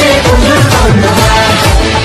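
Bengali Durga Puja song playing, with a steady beat.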